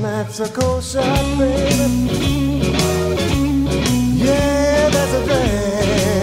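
Background music: a rock song with guitar over a bass line.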